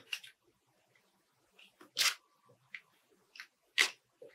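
Handling noises from plastic drinking straws and paper as straw pieces are glued on: a few short crinkles and clicks. The loudest come about two seconds in and just before the four-second mark.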